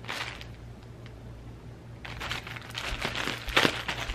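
Plastic mailer bag crinkling and rustling as it is handled and opened, in quick rough strokes, with a burst at the start and busier in the second half.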